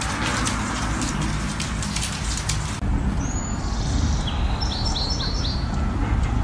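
Light clicking for the first few seconds, then small birds chirping: one short high call, and a second or so later a quick run of four chirps, over a steady low rumble.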